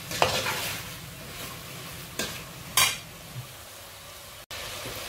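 Metal ladle stirring and scraping chicken pieces in an aluminium pot, with a few sharp clinks against the pot, the loudest near three seconds in, over a steady sizzle of the chicken sautéing.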